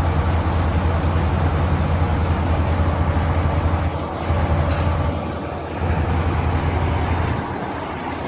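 Low, steady engine rumble of a heavy vehicle, with abrupt drops in level a few times.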